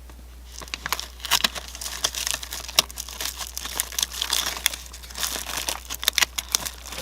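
Aluminum foil tape and foil flex ducting crinkling as the tape is handled and pressed onto the duct joint. A dense run of sharp, irregular crackles starts about half a second in.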